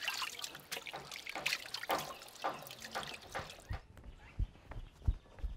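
Water being poured and splashed at a concrete washbasin, scooped and tipped from a small bowl into a plastic dish in irregular splashes. About two-thirds of the way through, the splashing stops and a few soft, low thumps follow.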